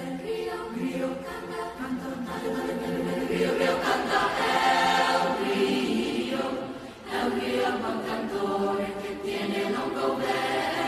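Mixed youth choir of girls' and boys' voices singing held chords, growing louder about four seconds in, with a brief drop just before seven seconds before the singing resumes.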